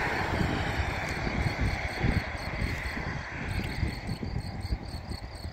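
The rush of a TGV high-speed train that has just passed, dying away, with wind buffeting the microphone. Insects chirp steadily at a high, regular rate.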